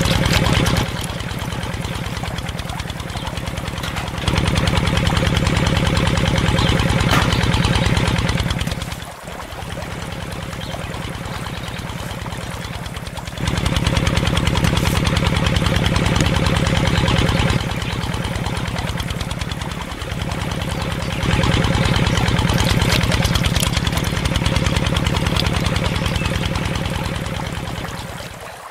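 Small single-cylinder diesel-style pump-set engine running with a rapid, even chug, driving a water pump; the loudness jumps up and down abruptly several times.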